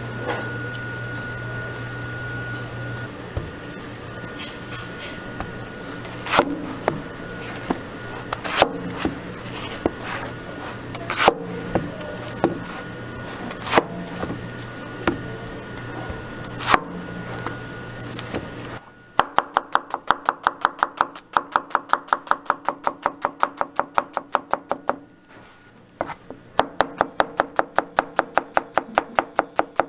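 Cleaver on a plastic cutting board. First comes a single chop every couple of seconds over a steady hum as onions are halved. After about nineteen seconds it switches to rapid, even chopping as onion is sliced, about five strokes a second, with a brief pause near the end.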